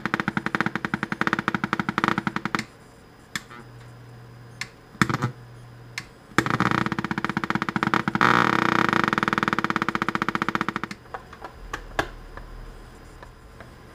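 Harman Kardon 01D430 multimedia speakers giving out loud, rapid popping in two long bursts. The first stops about two and a half seconds in, and the second runs from about six to eleven seconds in, with a low hum and a few single clicks between them. The popping comes from a bulging, open 3300 µF 25 V electrolytic capacitor in the speaker's power supply.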